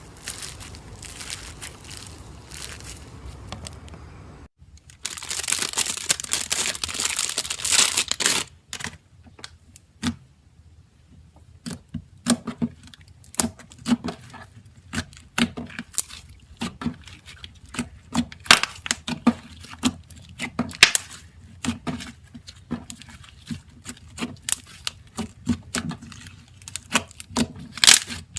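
Slime being squished and stretched by hand, crackling and popping. A brief break comes about four seconds in, then a few seconds of dense, louder crackling, followed by scattered sharp pops and clicks.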